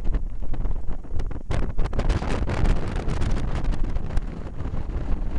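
Wind buffeting the camera's microphone on an exposed hilltop: a loud, gusty rumble that swells in the middle.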